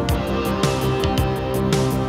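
Background music with a steady beat: held chords, a low note dropping in pitch about every half second, and regular light percussion taps.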